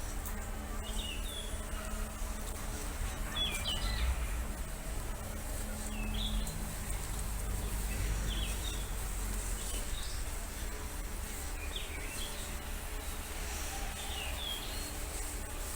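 Small birds chirping, short calls repeated every couple of seconds, over a steady low rumble.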